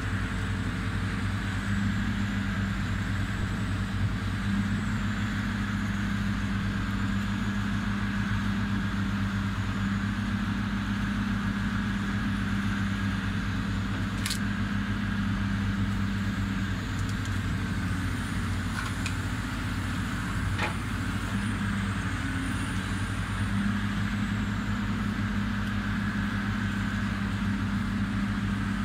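Diesel engine of a demolition excavator running steadily under load, with a faint high hydraulic whine that wavers in pitch. A few sharp knocks come about halfway through and a few seconds later.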